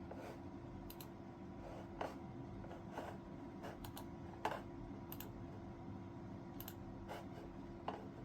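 About a dozen light, irregular clicks and taps, the loudest about four and a half seconds in, over a steady low electrical hum.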